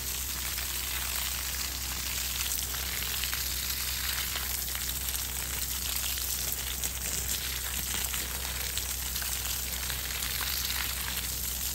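Spray from a garden hose pattering steadily onto wet mulch and shallow puddles in the basin around a tree's trunk, a constant hiss of falling water.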